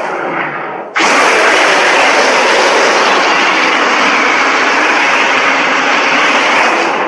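Edited monster roar voiced by a person: a short rasp, then about a second in a long, loud, harsh roar with no clear pitch.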